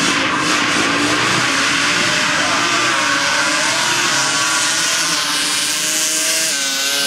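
Small racing engines running at high revs in a sand drag race, several engine notes overlapping. Their pitch wavers, and one engine's note steps up near the end.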